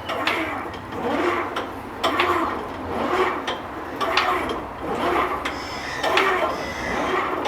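Church bell being raised with its clapper tied, so it does not strike: the swinging bell and its fittings give a rhythmic creaking and rubbing, swelling about once a second with sharp clicks on each swing.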